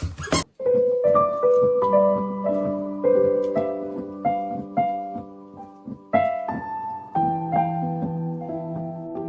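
Background piano music: a slow melody of held single notes, about two a second, over low sustained chords. A short burst of noise comes just at the start.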